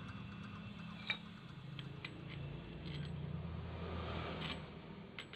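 Scattered light metallic clicks and clinks of brass pipe fittings and an adjustable wrench being handled and set on a coupling nut, over a low steady hum.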